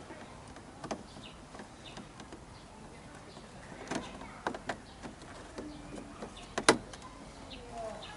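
A few sharp plastic clicks and knocks from a car door trim panel being handled and fitted, with the loudest knock about two-thirds of the way through.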